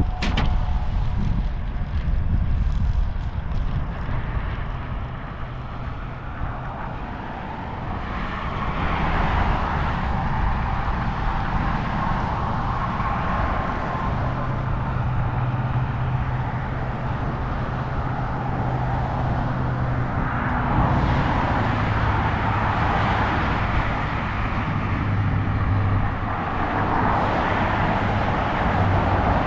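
Road traffic noise: cars passing on a busy road, the level swelling as vehicles go by, over a steady low engine hum.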